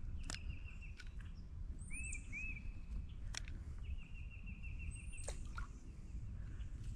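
Songbirds calling: short rising-and-falling whistled notes repeated in pairs, two quick trills of evenly spaced notes, and a few high chips. A few sharp clicks sound over a steady low rumble.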